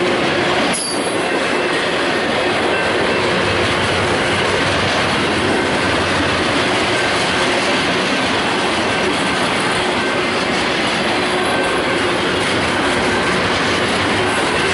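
Double-stack intermodal freight train passing: the steady, loud running noise of the well cars' steel wheels on the rails, with faint thin wheel squeals.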